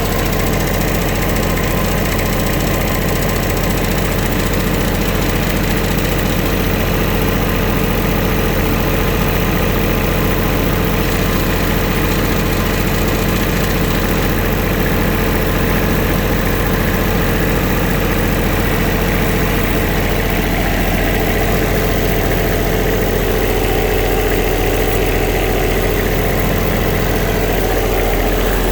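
Bobcat 553 skid-steer loader's diesel engine running steadily.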